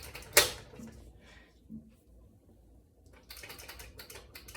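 Handling noise: a sharp click about half a second in, then a run of light clicks and rustling near the end.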